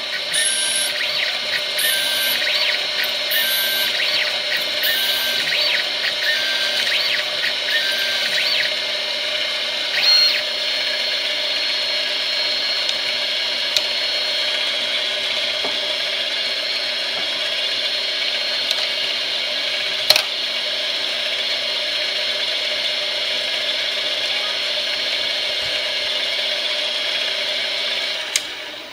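Benchtop metal lathe running at speed, its motor and gear drive giving a steady multi-toned whine as the tool cuts a plastic workpiece, with short repeated cutting squeaks over the first several seconds. The lathe shuts off near the end and the sound drops away.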